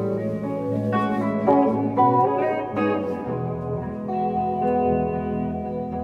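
A band playing an instrumental passage live: electric guitars over an electric keyboard, with changing notes throughout.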